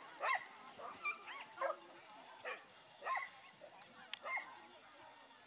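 A dog barking, a string of short barks and yips at irregular intervals, stopping about a second before the end.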